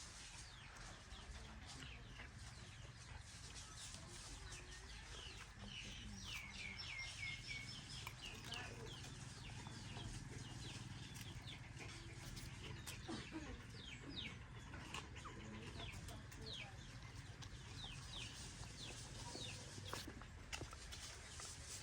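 Birds chirping: many short, high calls that fall in pitch, with a quick run of about six together a third of the way in, over a low steady hum.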